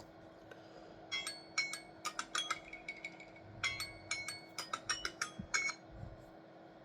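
A metal dab tool clinking and tapping against glass, in two quick runs of bright ringing clinks, over a faint steady hum.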